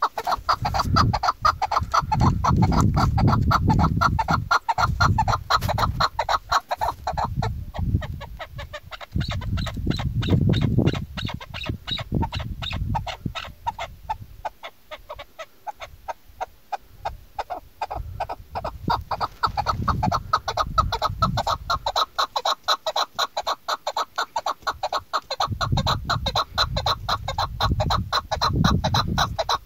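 Female chukar partridge calling: long runs of quick, evenly spaced clucking notes, fading somewhat in the middle and strengthening again.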